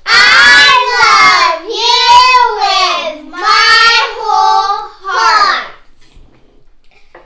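Three young children singing a short theme song together, the song ending about six seconds in.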